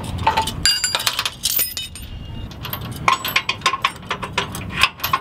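Steel trailer safety chain clinking and jangling as it is pulled across and hooked onto the tow hitch: a run of sharp metallic clinks, some ringing on briefly.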